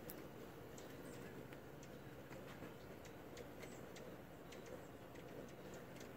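Faint, irregular high ticks, about two a second, over a steady low background hum: chip calls of hummingbirds.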